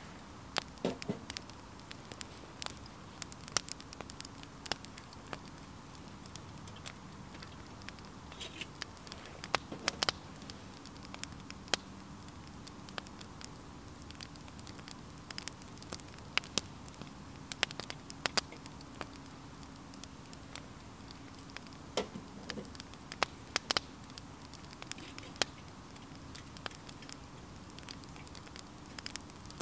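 Small wood fire burning in a FireHiking twig stove, crackling with sharp, irregular pops.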